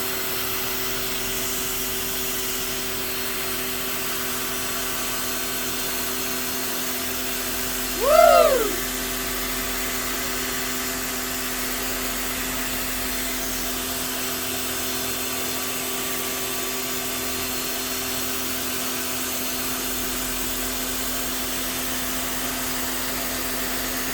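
An electric motor running steadily with a hiss and a constant hum. About eight seconds in, a short, loud tone rises and falls.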